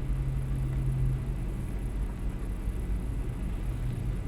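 Semi truck's diesel engine idling with a steady low rumble and hum.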